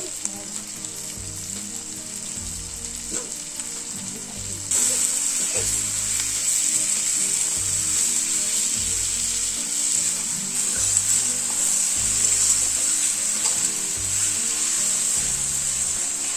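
Chopped onion frying in hot mustard oil in a kadai, with a steady sizzle that grows louder about five seconds in.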